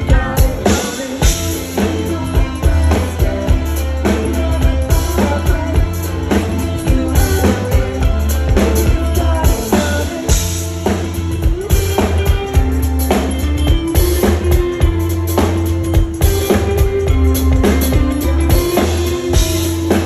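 Live rock band playing amplified through a PA: drum kit with steady kick and snare hits under electric guitars.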